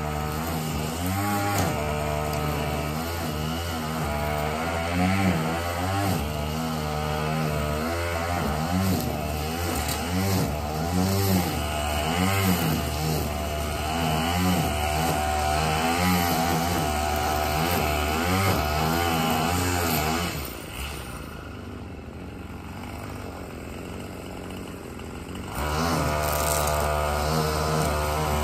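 Gas-powered string trimmer running, its engine pitch rising and falling with the throttle. About twenty seconds in it drops back to a quieter idle for some five seconds, then revs up again.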